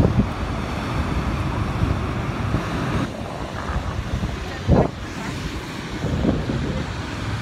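Steady rush of heavy surf breaking over rocks, mixed with wind buffeting the microphone. A short, louder arched sound comes near five seconds in.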